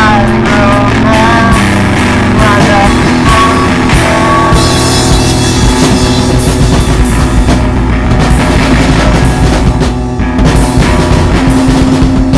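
Loud rock song by a band, with drum kit and guitars playing. The drums drop out briefly about ten seconds in.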